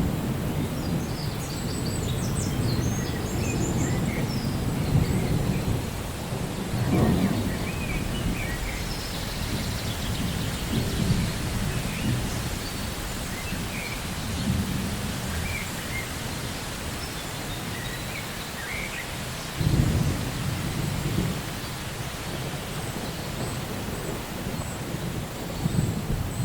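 Thunder rumbling over steady rain, with heavier rolls of thunder about seven seconds in and again about twenty seconds in. Faint bird chirps come through here and there, mostly in the first few seconds.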